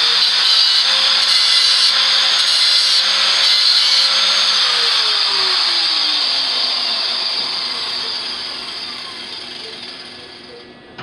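Electric grinder cleaning a spot on steel down to bare metal for the welder's ground clamp: it runs steadily with a bright grinding hiss, then about four and a half seconds in it is switched off and its motor whine falls as it spins down and fades.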